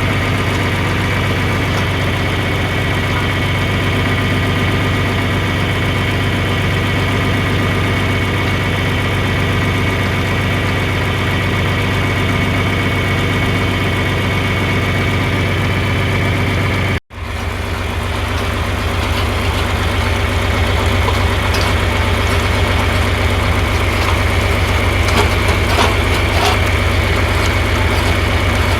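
John Deere 4020 tractor's six-cylinder engine running steadily while it powers a post hole digger. The sound drops out for an instant about two-thirds of the way through, then the engine continues with a few faint clicks and scrapes.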